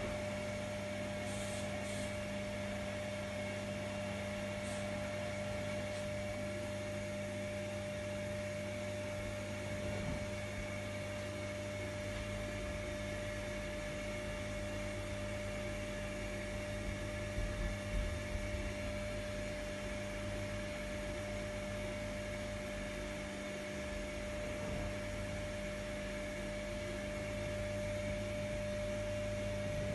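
Primus RS16 front-loading washing machine turning its drum through a wash, a steady motor hum with a constant whine. A few soft knocks come a little past halfway.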